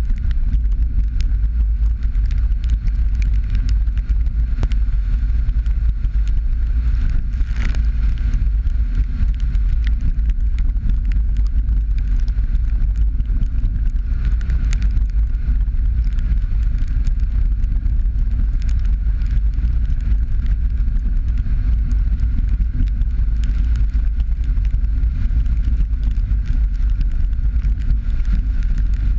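Jeep Patriot driving along a wet dirt road: a steady low rumble of tyre and road noise, with scattered small ticks throughout.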